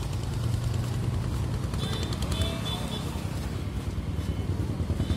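A motor vehicle engine running steadily, a low hum, with a few faint high chirps about two seconds in.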